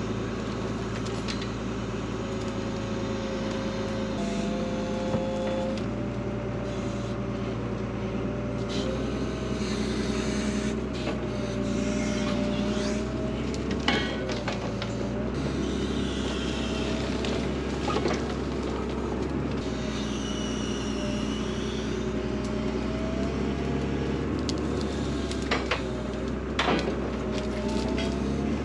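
Front-end loader's engine running steadily, with a whine that steps and glides up and down as the hydraulics work. There are higher scraping squeals and a few sharp metal clanks as the forks work against scrap.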